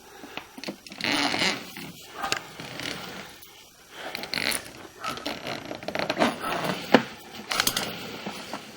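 Sewer inspection camera's push cable being fed into the sewer line through the cleanout, scraping and rattling unevenly with scattered sharp clicks.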